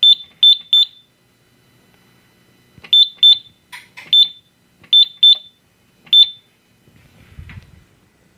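Short high-pitched beeps from the Simplex 4100U fire alarm control panel, one per keypad button press, coming in irregular clusters. There are about nine in all: three quick ones at once, then pairs and single beeps. A faint low rumble follows near the end.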